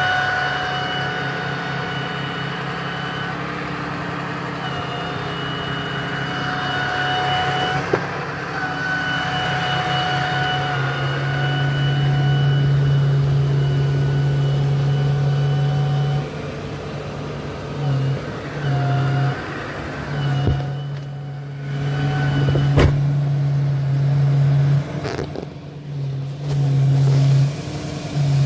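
Diesel engine of a 2010 Ram 4500 picker truck idling, with a steady whine over the low running sound. In the second half the sound cuts in and out unevenly.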